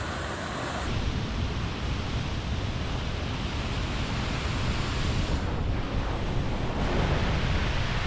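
Steady rushing noise of a waterfall, with wind buffeting the microphone.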